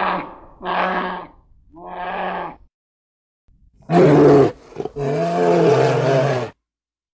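A bear calling: three short, pitched roars one after another, then a pause and two longer, louder roars about four and five seconds in.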